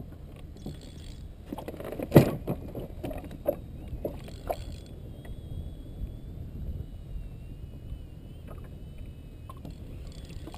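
Several knocks and clunks of handled fishing gear against a canoe's hull, the loudest about two seconds in, over a steady low hiss. A faint, thin, wavering high tone sounds in the second half.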